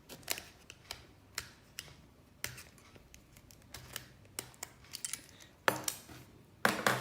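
Irregular sharp plastic clicks and taps from a 3x3 Rubik's cube being handled, with its center cap off. There are about a dozen spaced clicks, the loudest two near the end.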